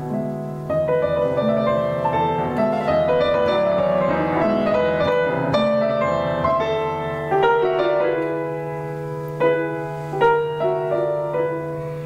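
Solo piano played live: a flowing run of quick notes, then slower, separately struck notes and chords in the second half. A steady low hum runs underneath.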